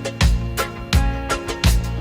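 Background music with a steady beat and a bass line, Afrobeat or reggae in feel.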